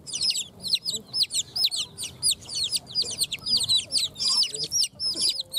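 A flock of young domestic chickens (chicks) peeping continuously: short, high-pitched chirps that fall in pitch, several a second and overlapping.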